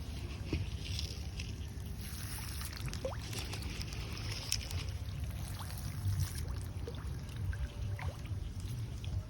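Catfish splashing and slurping at the water surface as they feed, an irregular patter of small splashes and sloshes over a steady low rumble.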